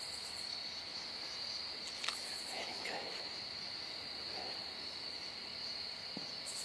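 Steady high-pitched chorus of crickets, with a single soft click about two seconds in.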